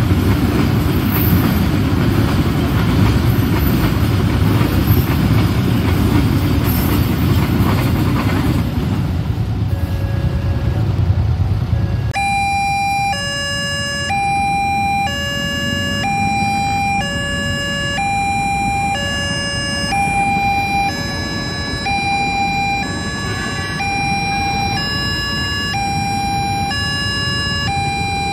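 A train passing close by, a heavy low rumble for the first twelve seconds. Then, after a cut, an electronic railroad-crossing alarm sounds: two tones taking turns in a steady repeating pattern as a train approaches the closed crossing.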